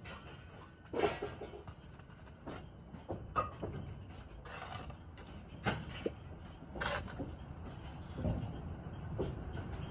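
Steel brick trowel scraping and spreading mortar along a course of brick, with irregular scrapes and knocks; the louder ones come about a second in and around six to seven seconds in.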